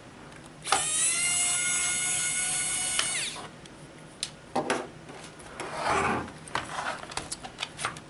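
Small electric screwdriver whirring for about two and a half seconds as it backs a leftover screw out of a Chromebook's plastic base. Its pitch rises as it spins up and falls as it stops. It is followed by several light clicks and knocks.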